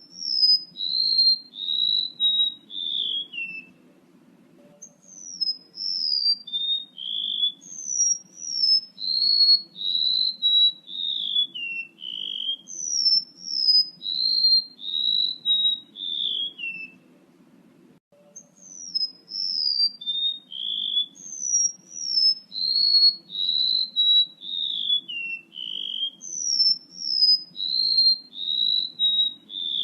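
Recorded song of a male rementuk laut bird, played as a lure call. It is a string of clear, high whistled notes, each slurring downward, that step down in pitch from phrase to phrase and repeat over and over. There are short pauses about 4 seconds in and near the middle, over a faint low hum.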